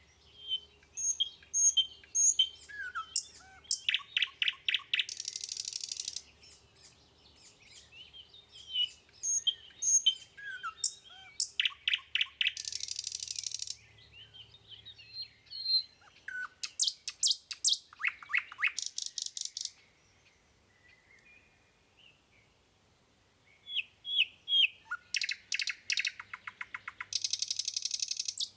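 A songbird singing in repeated phrases. Each phrase is a run of short chirps that ends in a fast trill and a buzzy rattle. It sings four phrases, with a pause of a few seconds before the last.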